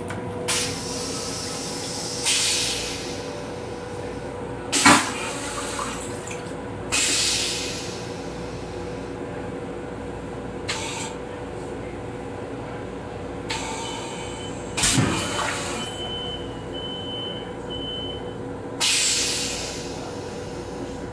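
Commuter railcar toilet running its flush cycle after the button press: a series of short hissing bursts of rinse water into the stainless steel bowl, each dying away within about a second. The bursts about five and fifteen seconds in are the loudest and begin with a sharp clunk. A steady hum runs underneath.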